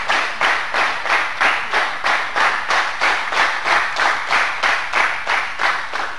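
A group clapping in unison in a steady rhythm, about two to three claps a second, gradually getting quieter toward the end.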